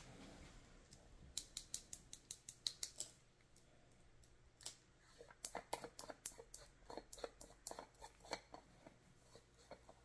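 Light, rapid plastic clicks in two runs as a round plastic setting-powder jar is handled and its screw lid twisted open, with long fingernails tapping against the case.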